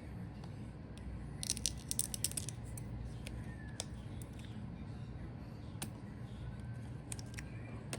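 Small parts inside an opened laptop being handled while a component is removed: a quick run of light clicks and rattles about one and a half seconds in, then a few single clicks, over a steady low hum.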